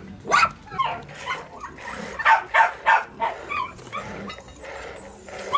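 A dog barking several times, short sharp barks coming quickly one after another in the middle of the stretch.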